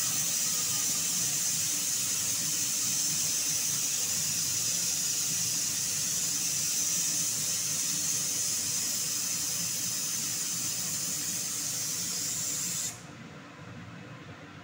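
Aluminium pressure cooker on a gas stove hissing steadily as steam escapes from its weight valve under pressure. The hiss cuts off abruptly about 13 seconds in, leaving a quieter low rush.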